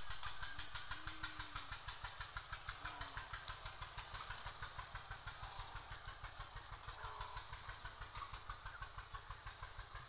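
An engine idling steadily with a regular beat of about six pulses a second, slowly fading.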